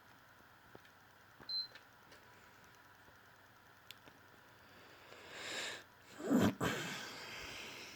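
PlayStation 4 giving a single short, high beep about a second and a half in, the beep its power button makes when pressed. Near the end comes a louder rustling noise that swells, peaks and fades.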